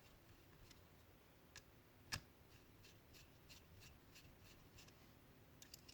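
Faint clicks and ticks of small parts being handled: screws going into the plastic motor cover of a hair clipper. There is one sharper click about two seconds in, then a run of light ticks.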